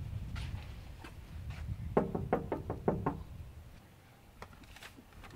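Knuckles knocking on a house's front door: a quick run of about six raps about two seconds in.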